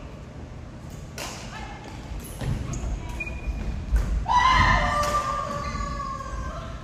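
Badminton play in a large gym hall: sharp racket-on-shuttlecock hits and thuds of footwork on the wooden floor, echoing. About four seconds in, a high, drawn-out squeal rises and holds for a second or so.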